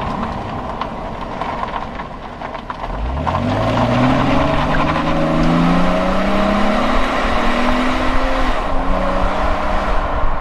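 Exhaust of an Opel Omega's 3.2-litre Y32SE V6, heard close to the tailpipe with road noise under it. The car runs steadily at first. About three seconds in the engine note starts to climb as the car accelerates, rising over several seconds. Near the end the pitch drops at a gear change and then holds steady.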